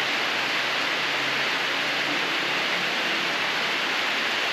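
Steady, even hiss of falling rain, with no single drops or other events standing out.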